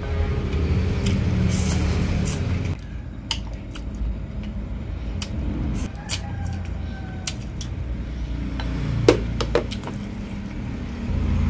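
Eating sounds: chopsticks clicking against a plate and instant noodles being slurped and chewed, with two sharp clicks about nine seconds in. A low rumble of passing traffic runs under the first few seconds, stops abruptly, and returns near the end.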